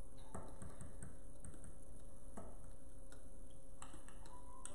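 Light, irregular clicks and taps of a metal fork against a glass mug as cake batter is mixed, over a faint steady hum.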